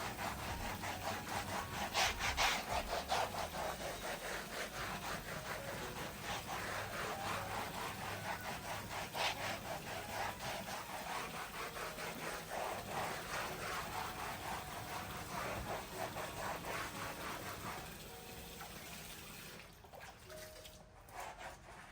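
Scrubbing brush worked back and forth over a kitchen mat soaking in soapy water, in quick repeated scraping strokes that die away near the end.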